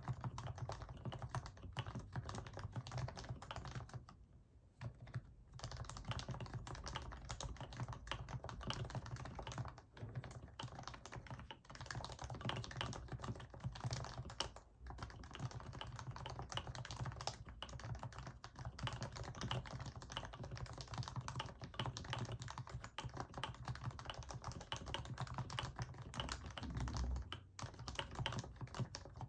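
Typing on a Happy Hacking Keyboard Professional BT whose Topre switches have been fully lubricated: a continuous run of keystrokes, with short pauses about four seconds in and again around ten and fifteen seconds.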